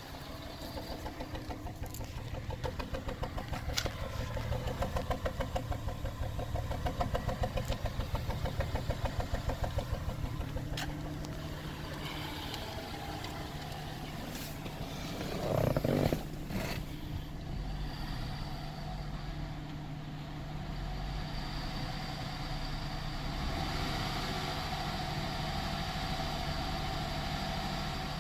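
2004 Cadillac SRX engine idling roughly, its level pulsing unevenly in the first half. There is a brief louder burst about halfway through, and then it runs steadier.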